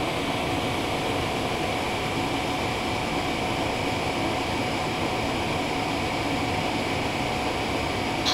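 Steady mechanical hum and hiss from an Amtrak Superliner passenger train moving slowly along the platform, with faint steady whining tones and no distinct clanks or knocks.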